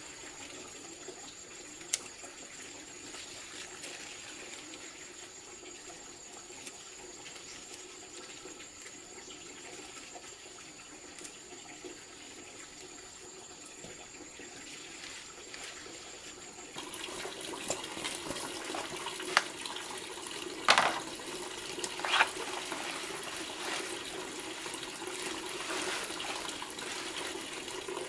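Water running steadily. A little past the middle it gets louder and is broken by scattered knocks and clicks.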